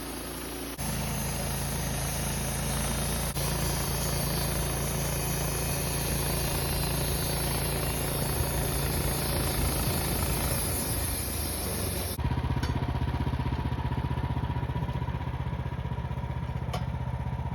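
Wood-Mizer LT15 band sawmill's gas engine running under load as the band blade cuts a slab off an alder log, with a dense, hissy sawing noise. About twelve seconds in the sawing noise stops abruptly, leaving the engine running with a steady whine.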